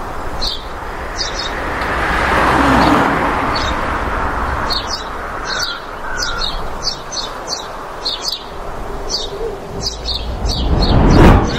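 Small birds chirping, short high calls repeating over and over, over a steady rushing background. The rush swells about two to three seconds in, and a louder rush peaks near the end.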